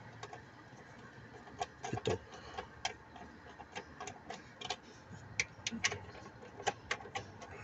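Ratchet wrench clicking in short, irregular runs of sharp metallic ticks while the bolts of an engine's intake manifold are turned down.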